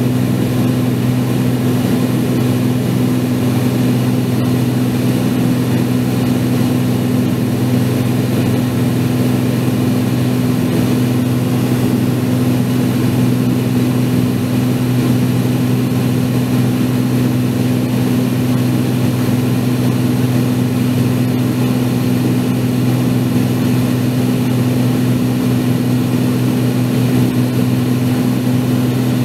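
Light piston aircraft engine and propeller droning steadily in cruise flight, heard from aboard the aircraft, with a deep even hum over a constant hiss and no change in pitch.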